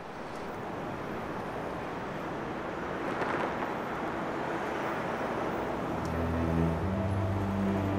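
Steady rushing noise, slowly growing louder with a brief swell a little after three seconds. About six seconds in, low sustained music notes come in beneath it.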